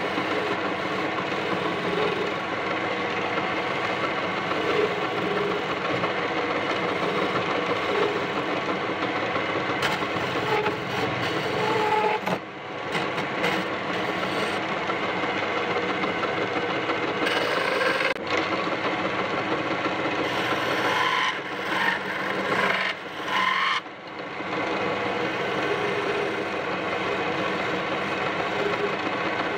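Wood lathe running with a hand-held tool scraping against a spinning wooden spindle, giving a steady dense scraping over the lathe's hum. The scraping dips briefly a few times in the second half.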